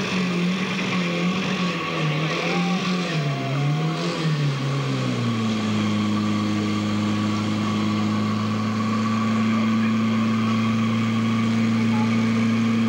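Portable fire pump's engine running hard, its pitch wavering up and down for about five seconds, then rising and holding steady at high revs as it pumps water into the hose line.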